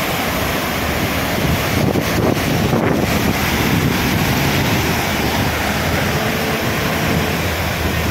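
Steady rush of muddy floodwater streaming across a road, with wind buffeting the microphone in brief gusts about two and three seconds in.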